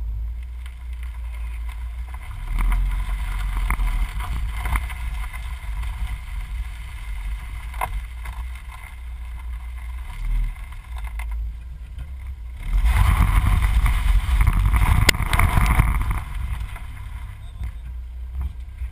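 Car driving over loose gravel, heard from underneath its body: a steady low rumble with wind on the microphone and stones ticking against the underside, then about three seconds of loud gravel crunching and scraping as the car brakes hard and slides to a stop.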